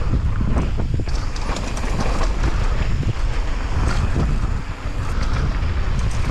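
Wind buffeting the microphone of a mountain bike's action camera on a fast trail descent, a steady low rumble, with scattered clicks and knocks as the bike rattles over the rough trail.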